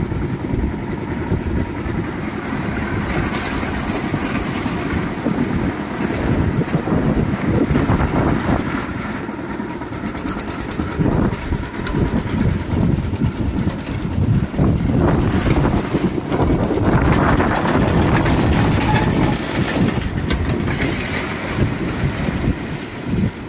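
Engine-driven concrete mixer with a winch hoist running steadily, with a dense low drone. Near the end, wet concrete pours from the hoist bucket into a wheelbarrow.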